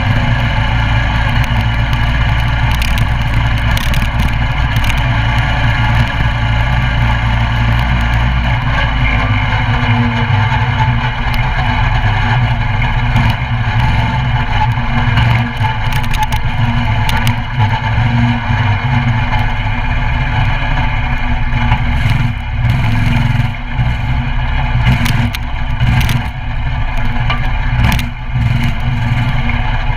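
Coleman CT200U mini bike's 196cc single-cylinder engine running under way, its revs shifting and dipping briefly several times in the second half. Scattered short knocks and rattles run over the engine sound.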